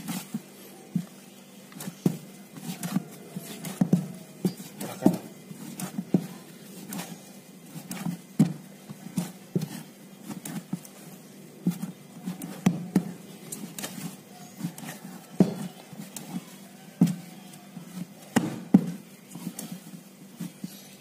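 Whole-wheat oat bread dough being kneaded by hand on a floured board: irregular soft thuds and slaps as the dough is pressed and folded, about one or two a second.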